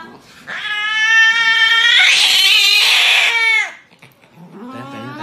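Cat yowling in distress while restrained for an injection: one long drawn-out yowl of about three seconds that turns harsher and louder midway and stops abruptly, then a second yowl begins near the end.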